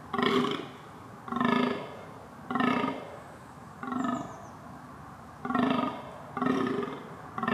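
A fallow deer buck giving its rutting groan: about seven short, low, belch-like groans, roughly one a second, with a longer pause midway through.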